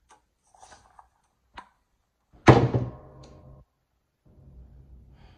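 Clamshell heat press being clamped shut by its handle: a few light clicks, then one loud metal clunk about two and a half seconds in that rings briefly.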